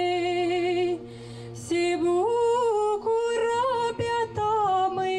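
A woman singing solo through a microphone: she holds a long note with vibrato, breaks off about a second in, then sings on from note to note.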